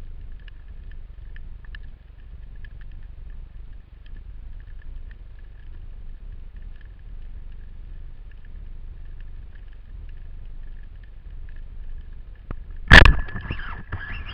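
Muffled underwater rumble with faint scattered ticks, then about a second before the end a single loud sharp crack as a band-powered speargun fires, followed by a short spell of rattling as the shaft and line run out.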